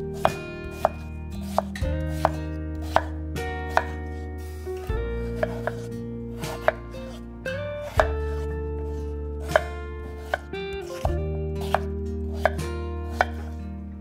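Knife chopping on a cutting board: sharp knocks about every 0.7 s, over background music with held notes.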